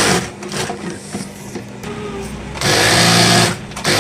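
Industrial high-speed sewing machine stitching in short runs. There is a brief burst at the start, then a pause of about two and a half seconds, then about a second of steady running, a short stop, and another run starting near the end.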